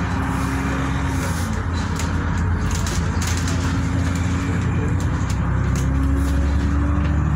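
Bus engine and road rumble heard from inside the passenger cabin as the bus gathers speed, the engine note climbing slowly, with a few short rattles and clicks from the bodywork.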